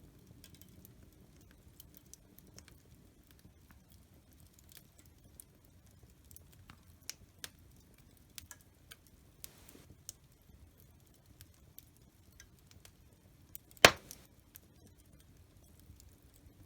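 Fire in a fireplace crackling, with scattered small pops and one much louder sharp pop about 14 seconds in, over a low steady rumble.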